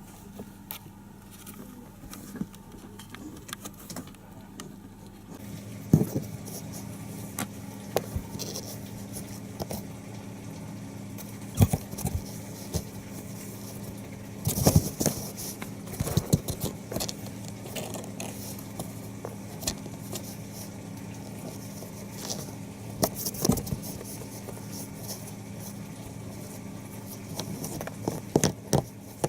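Kittens playing: scattered taps, scrapes and knocks of small paws and bodies scrambling about, coming in quick clusters now and then. A steady low hum starts about five seconds in.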